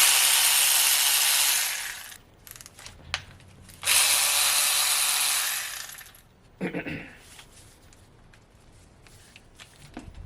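A power tool running in two bursts of about two seconds each, spinning out the side main cap bolts on an LS 5.3 engine block.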